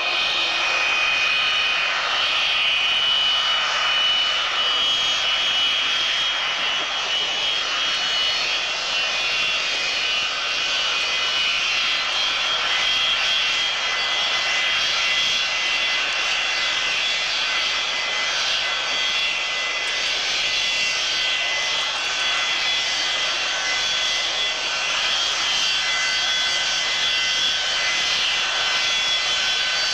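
Boeing T-43A (U.S. Air Force 737-200) taxiing, its two Pratt & Whitney JT8D turbofans running at low power: a steady jet whine with several high whining tones. Another high tone joins about halfway through.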